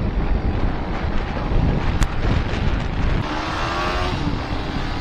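Royal Enfield Hunter 350's single-cylinder engine running at road speed under steady wind noise on the microphone. There is one sharp click about two seconds in, and a brief pitched tone a little after three seconds.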